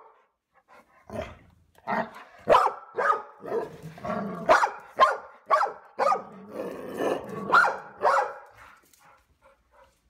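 A dog barking about a dozen times, roughly two barks a second, with growling between the barks; it starts about a second in.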